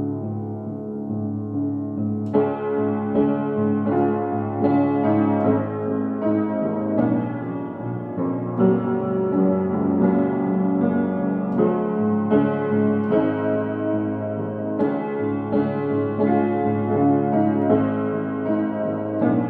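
Piano music: a melody of struck notes over sustained chords, fuller from about two seconds in.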